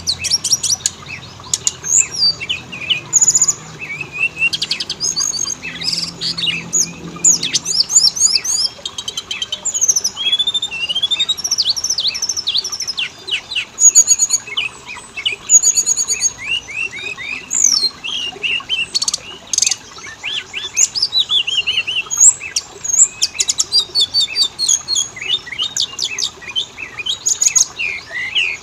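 Oriental magpie-robin (kacer) song: a continuous, varied stream of loud sweeping whistles, slurred notes and fast trills, with no pauses longer than a moment.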